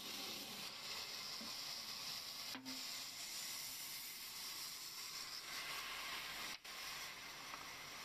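Steady hissing noise of a sawmill bandsaw running, broken by two brief dips, about two and a half and six and a half seconds in.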